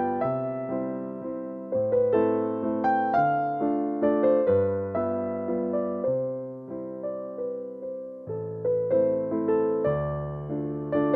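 Background music on a keyboard: a gentle melody of struck, fading notes over lower sustained notes.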